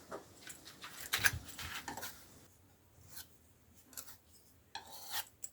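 Short scraping and smoothing strokes as homemade wood filler of sawdust and wood glue is worked onto an old wooden door, busiest in the first couple of seconds, pausing, then starting again near the end.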